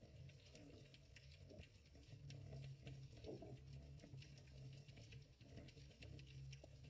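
Faint underwater ambience picked up by a GoPro in its waterproof housing: a low, muffled rumble with scattered light ticks and crackles throughout.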